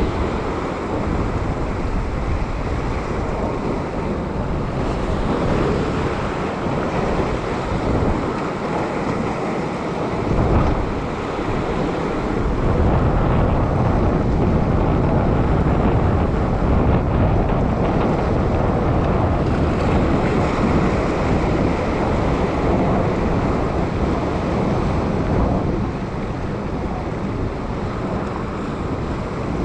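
Sea swell surging and washing over a rock ledge, with wind buffeting the microphone.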